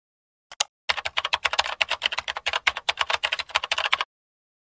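Typing sound effect: a single key click, then a rapid run of key clicks for about three seconds that stops abruptly.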